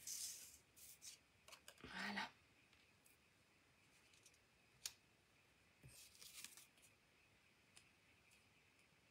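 Paper being handled: a strip of patterned paper laid onto a cardstock strip and pressed down by hand, with brief soft rustles at the start and about two seconds in, a light tick near five seconds and a few more rustles around six seconds. Otherwise near silence.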